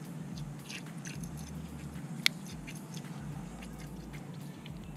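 Faint scattered clicks and rustles of gloved hands and surgical instruments at work, with one sharp click a little over two seconds in, over a low steady hum.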